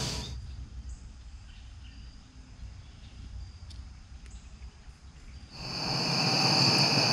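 Steady high trilling of crickets and other insects fades out at the start, leaving a few seconds of faint low rumble, then the insect chorus fades back in about five and a half seconds in.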